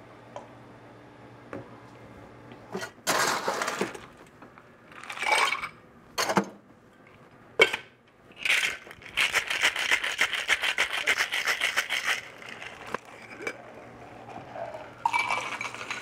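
Ice cubes dropped into a stainless-steel Boston cocktail shaker, a couple of sharp metal-and-glass clacks as the shaker is closed, then ice rattling rapidly inside it as it is shaken for about three seconds. Near the end the shaken drink and ice are poured out into a glass.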